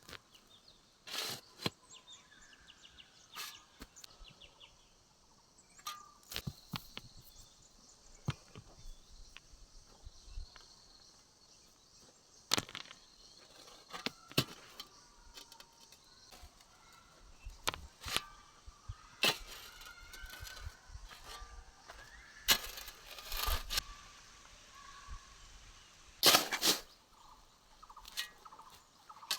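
Irregular rustles and knocks, about a dozen scattered through, the loudest a burst near the end, over a quiet outdoor background.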